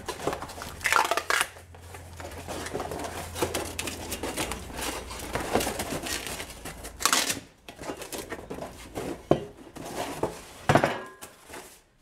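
Cardboard packaging being torn open, pulled off and crumpled around a new steel truck-bed cross sill, with a few knocks and scrapes of the steel part on the wooden workbench.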